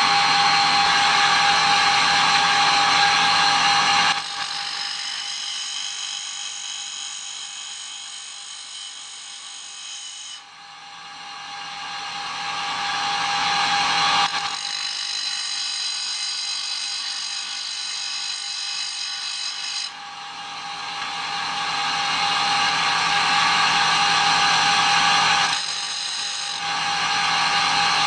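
Electric motor driving a tool and cutter grinder's grinding spindle, running with a steady whine. The sound drops sharply about four seconds in and fades, then builds back up, and sags and builds up once more.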